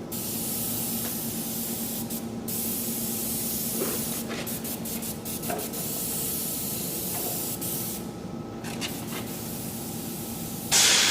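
Paint spray gun spraying pipework in long hissing passes. The hiss stops briefly several times as the trigger is let go, with a longer pause about eight seconds in and a louder pass near the end, over a steady low hum.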